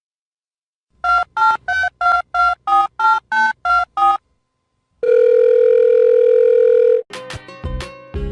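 Telephone keypad dialling: about ten quick two-pitch beeps, roughly three a second, as a number is keyed in. A pause follows, then a steady tone that lasts about two seconds. Music starts near the end.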